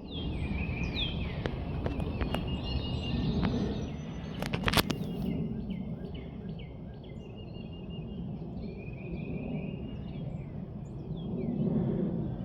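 Small birds chirping repeatedly over a steady low rumble, with a few sharp clicks about four and a half seconds in.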